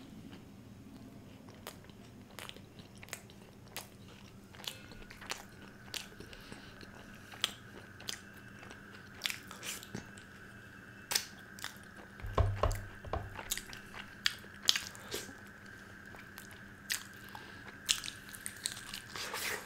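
Close-miked sounds of a person eating butter chicken: chewing and biting with scattered sharp mouth clicks and smacks. A faint steady hum runs underneath, and a few low thumps come about twelve seconds in.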